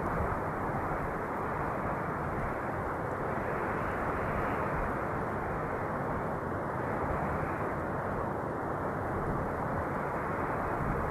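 Steady wind noise: an even, dull rushing without whistles or sharp gusts, swelling and easing gently every few seconds.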